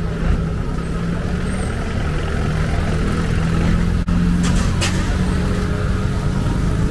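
Street traffic, with a motor vehicle engine running close by as a steady low hum. Two short hisses come a little past the middle.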